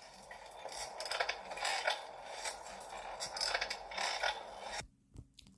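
Sound effect of a playground swing creaking back and forth, a repeated creak about every half second that stops near the end.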